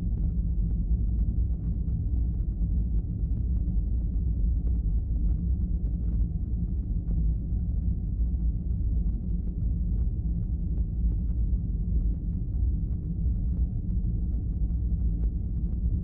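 A steady low rumble with faint scattered crackles over it.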